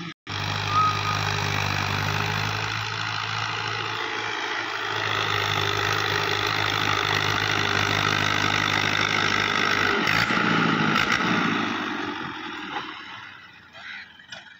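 A 640 tractor's diesel engine running hard under load as it pushes soil into a trolley. The sound is steady, shifts about ten seconds in, then fades near the end as the tractor backs away.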